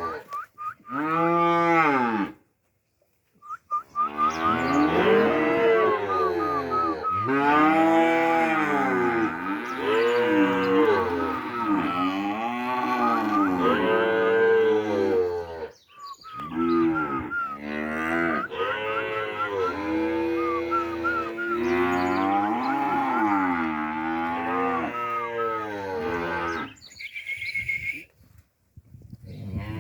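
A group of calves mooing and bawling, many calls overlapping, each rising and then falling in pitch, with a couple of short breaks.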